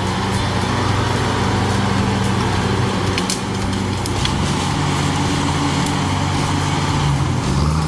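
Diesel engines of log skidders running steadily under load while dragging logs, their pitch shifting about five seconds in and again near the end. A couple of sharp cracks come in the middle.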